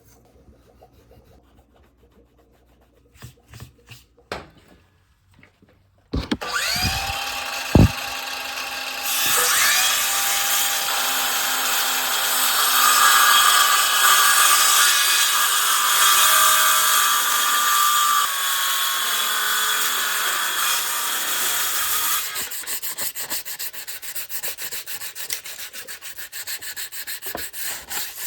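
A woodworking power tool spins up with a rising whine about six seconds in and cuts into wood with a loud, steady rasping noise and a sharp knock early on. Well past two thirds of the way through, the cut stops and quick, evenly repeated rubbing strokes on wood follow.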